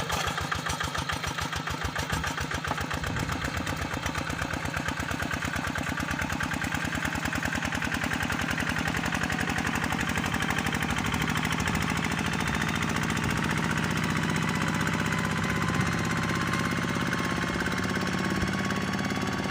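Tractor's Kubota diesel engine, fitted with a modified exhaust sound, running steadily under load while ploughing a rice paddy, with rapid, even firing beats.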